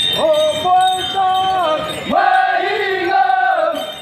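Group of Nocte dancers chanting together in two long held calls, each stepping up and down in pitch a few times, as part of the bamboo dance.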